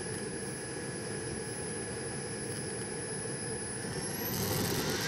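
Swiwin SW60 model jet turbine running at idle with a steady high whine, then spooling up about four seconds in, its whine rising in pitch and growing a little louder as the throttle is opened for the takeoff run.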